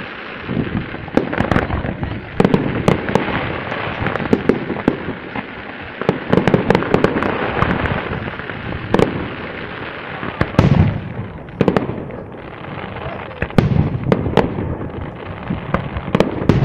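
Fireworks display: aerial shells bursting one after another in sharp bangs over a continuous dense crackling.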